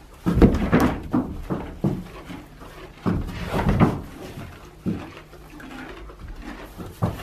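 Two horses squabbling across a wooden stall partition: bursts of horse noise mixed with sharp knocks on the stall boards, loudest in two clusters about a second in and near the middle.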